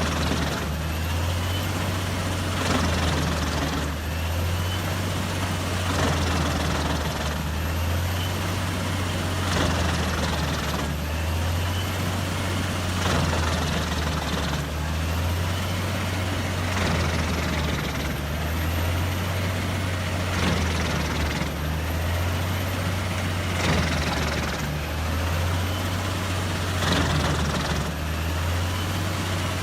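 Dopstad DH812 tree chipper working: its heavy engine drones steadily under load, swelling about every two seconds, with sharp cracks from the wood being chipped at the same pace.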